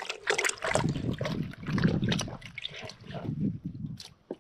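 Water sloshing and trickling in a bucket as gloved hands stir and scrub finds in it.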